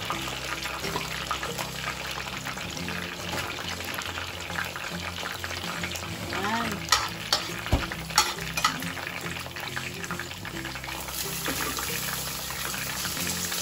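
Saba bananas deep-frying in a skillet of hot oil: a steady sizzle and crackle. A few sharp clicks and a knock come about seven to nine seconds in.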